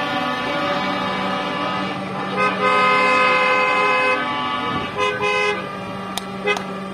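Vehicle horns honking as a convoy of vans and trucks drives by: one long blast about two and a half seconds in, then a shorter one about five seconds in, over the steady noise of passing engines.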